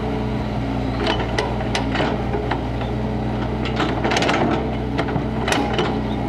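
Kobelco crawler excavator's diesel engine running steadily as the bucket digs into rocky soil, with a string of scraping knocks and crackles from the bucket and soil from about a second in until near the end.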